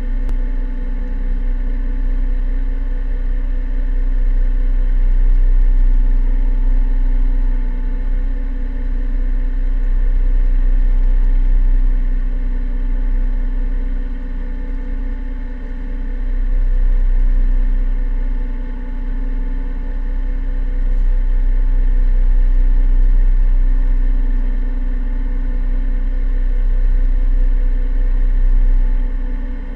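Sailboat's auxiliary engine running steadily while motoring under bare poles, with a low rumble that swells and fades every few seconds.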